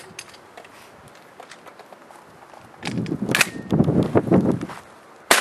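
A single close, loud gunshot near the end, with a short echo trailing after it. Before it come about two seconds of rustling noise and a few faint ticks.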